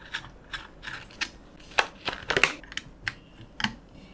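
Irregular small clicks and crinkly plastic rustling of hands handling RAM sticks and their packaging.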